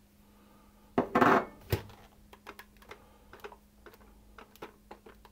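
Softened butter being put into a mixing bowl with a utensil: a sharp clink about a second in, a short loud scrape, another clink, then a run of light taps and clicks against the bowl.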